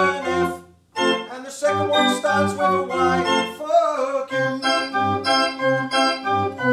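Church pipe organ playing a quick sequence of chords, its pipes sounded over MIDI from a keyboard controller. The sound cuts out briefly just before a second in, and from about four seconds in a held note sounds under pulsing bass notes.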